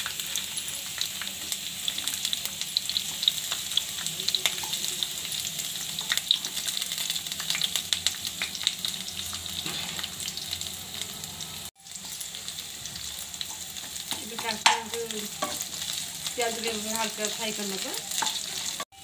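Green capsicum and onion pieces sizzling and crackling in hot oil in a kadai. Near the end they are stirred, with a sharp knock against the pan.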